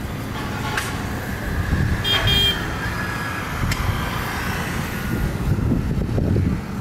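Distant rumbling roar of an Airbus A320neo's CFM LEAP-1A jet engines at takeoff thrust during the takeoff roll and lift-off, swelling near the end. A vehicle horn honks briefly about two seconds in.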